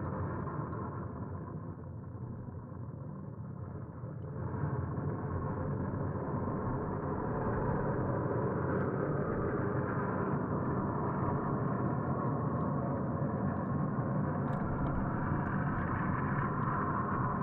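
A loud, sustained low droning hum made of several steady tones, the unexplained 'strange sound' heard over the town, which the recorder says cannot be an aircraft. It dips briefly early on, swells about four seconds in, then holds steady.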